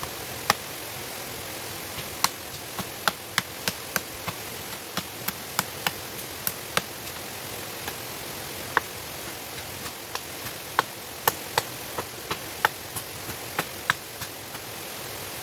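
Steady rush of a waterfall with many sharp, irregularly spaced snaps over it, about two a second.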